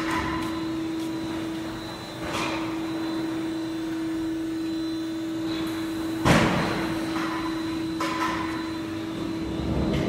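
Steady hum of CNC machine-shop machinery with a few clunks and knocks over it, the loudest a sharp knock about six seconds in.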